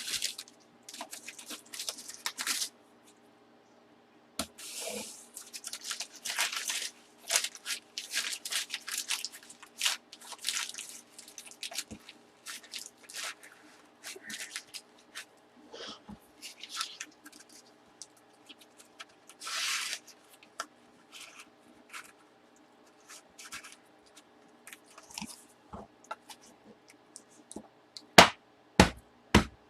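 Plastic wrapping on a cardboard bat tube crinkling and tearing as it is worked off in repeated short bursts, followed by a few sharp knocks near the end.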